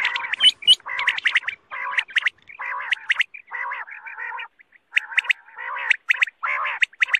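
Quail calling: a run of short, rapid call bursts, about one a second, with a brief pause past the middle. These are quail (batair) calls played as a lure for quail hunting.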